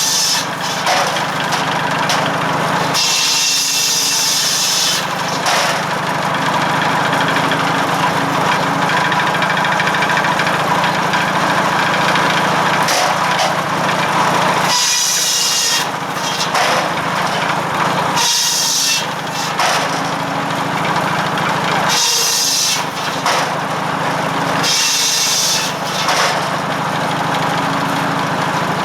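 Belt-driven firewood circular saw powered by a 1945 McCormick W4 tractor's four-cylinder engine, running steadily under the saw. The blade bites into logs five times, each cut a rasping stretch of a second or two over the steady engine and blade hum.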